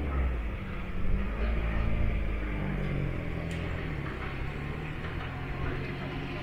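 A large vehicle's steady low rumble, with a held engine or motor hum that shifts slightly in pitch.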